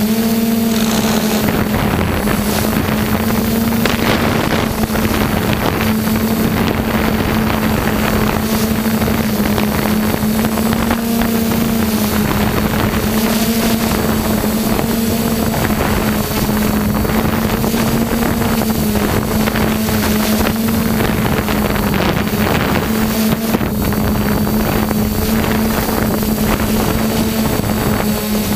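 A multirotor drone's electric motors and propellers buzzing steadily, close to the onboard camera, the pitch wavering slightly up and down as the drone holds its position. Wind rushes across the microphone.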